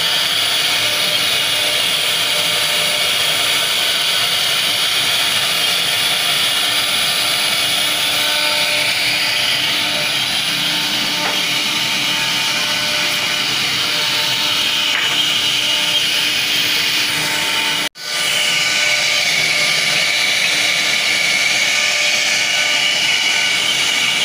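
CNC router spindle running with a steady high whine as its bit carves a 3D relief into a 70 mm-thick wooden door. The sound drops out for a split second about three-quarters of the way through.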